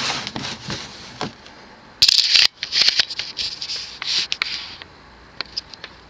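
A cardboard box being handled and turned over, scraping and rustling in several short bursts, the loudest about two seconds in, with a few sharp clicks.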